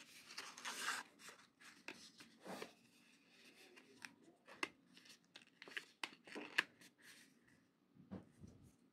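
Paper leaflets and a thin cardboard insert being handled: a rustle of paper in the first second, then scattered light clicks and taps of card against card.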